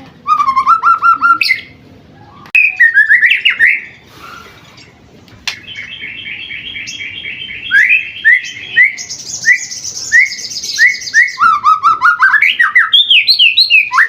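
White-rumped shama (murai batu), about seven months old, singing loud, varied phrases. It gives a run of repeated notes, a burst of quick rising notes, a fast trill, a higher rapid trill, then a string of rising notes near the end.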